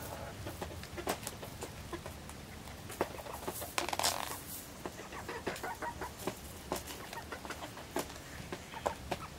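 Domestic hens clucking softly, with many small sharp clicks and scratches from birds moving on gravel. A brief louder scuffle comes about four seconds in.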